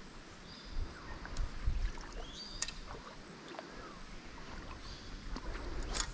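Water splashing and sloshing around a small boat in a shallow river, with scattered thumps and clicks and a few short high chirps.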